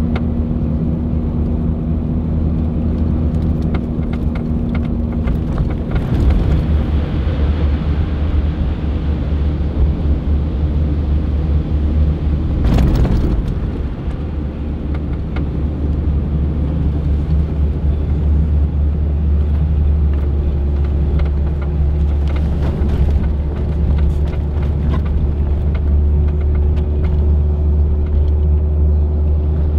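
Supercharged Toyota Land Cruiser FZJ80's straight-six engine and tyres droning steadily in the cabin on the move. A steady hum rides over the low rumble and changes pitch partway through, and there is a brief louder rush about thirteen seconds in.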